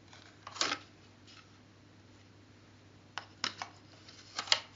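A few faint, short clicks and light rustles, one cluster about half a second in and several more near the end, in a quiet small room.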